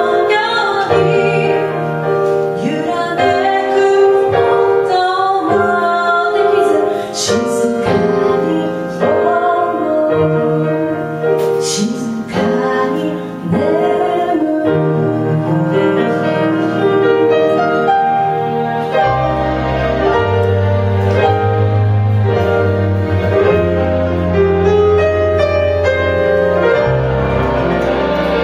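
Live band playing: grand piano, electric bass and drum kit, with a woman singing. A couple of cymbal crashes ring out, and about two-thirds of the way through the bass comes in with heavy low notes.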